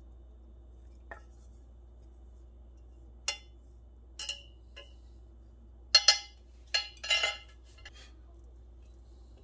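Chopsticks and a metal pot knocking and clinking against a ceramic plate while noodles are scraped off onto it: scattered sharp taps about a second apart, the loudest double knock about six seconds in followed by a quick cluster of clinks.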